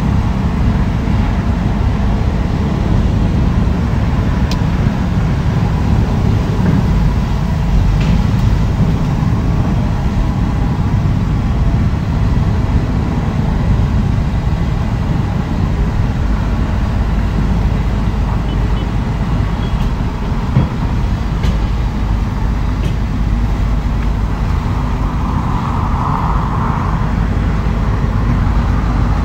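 Heavy diesel construction machinery running steadily with a low rumble, and a few faint clicks and knocks over it.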